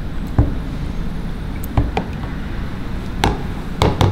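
Metal spoon stirring a liquid of soy sauce, vinegar and bonito flakes in a plastic container, with a few sharp clicks of the spoon knocking the container, the loudest two near the end. A steady low hum runs underneath.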